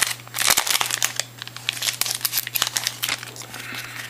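Foil wrapper of a Topps Turkey Red trading-card pack being torn open and crinkled by hand, with dense crackling that thins out about three seconds in.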